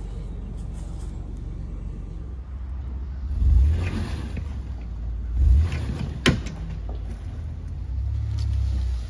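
Wind buffeting the microphone: a low rumble that swells in two gusts, with one sharp click a little past six seconds in.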